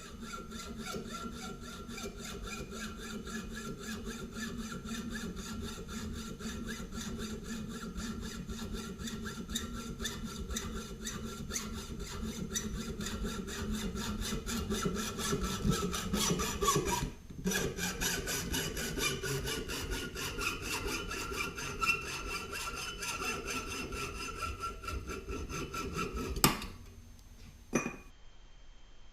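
Smithy combination lathe-mill machining metal: a rapid, even scraping rhythm over a steady motor hum. It breaks off for an instant about two-thirds of the way through, then runs on until it stops with a sharp click, followed by a fainter click a second later.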